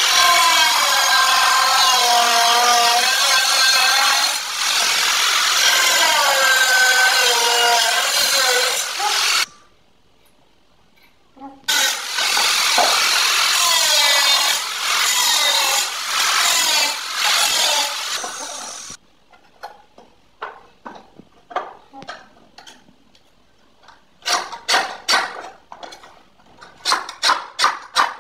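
Handheld power tool running under load in two long runs, its pitch wavering as it cuts, with a short pause between; then a series of short scraping or tapping strokes, quickening near the end.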